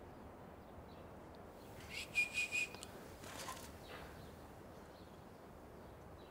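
A short, high whistle about two seconds in, a few quick pulses at one steady pitch, followed by a brief breathy rustle.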